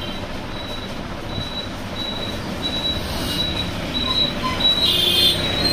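Steady street background noise with a thin, high-pitched tone that comes and goes in short dashes, growing louder a little after five seconds in.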